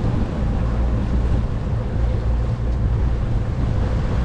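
The boat's outboard engine running steadily under way, with wind buffeting the microphone and water washing along the hull.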